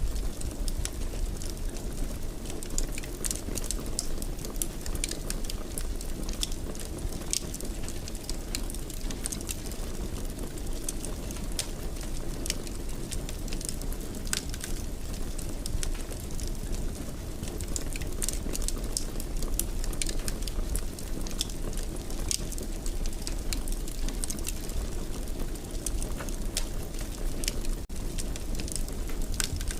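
Wood fire burning in a fireplace: a steady low rumble of flame with frequent small, sharp crackles and pops scattered throughout.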